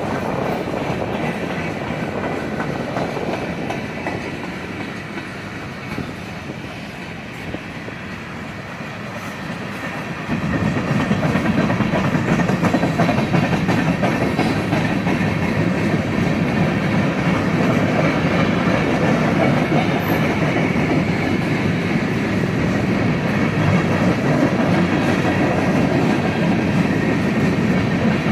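Railroad cars rolling past on the track in a steady stream of wheel-and-rail noise, which gets clearly louder about ten seconds in and stays loud.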